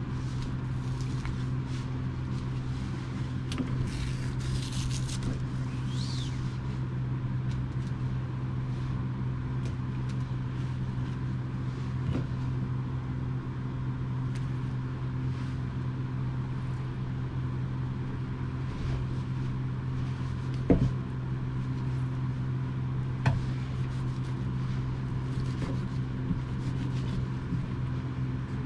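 Steady low mechanical hum of a running motor, even in pitch and level throughout, with faint handling noises and two short sharp knocks a couple of seconds apart past the middle, from work at the plastic cutting board.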